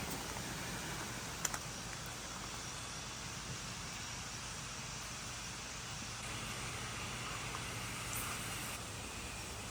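Steady outdoor background noise with a faint low hum and a single light click about a second and a half in.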